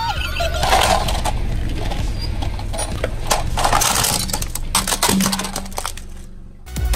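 Hard plastic toy fire truck cracking and snapping as a car tyre rolls over and crushes it, a run of sharp cracks over the first five seconds or so. A steady low hum of the car runs underneath.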